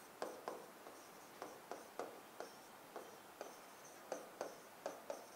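Felt-tip marker writing on a whiteboard: faint, short squeaky strokes about three a second as letters are drawn.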